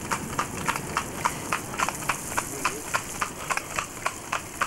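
A New Forest pony's hooves clip-clopping on wet tarmac as it pulls a light carriage, an even rhythm of about three to four hoofbeats a second over a steady low rumble.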